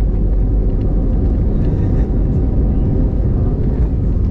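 Steady low rumble of a passenger airliner heard from inside the cabin, with faint background voices.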